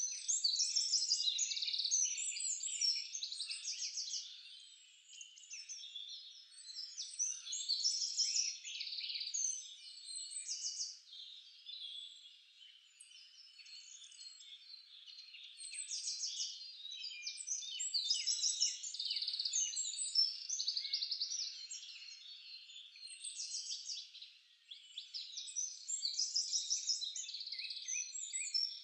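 Songbirds chirping and trilling nonstop, high-pitched, with dense phrases of rapid notes that swell and fade every few seconds.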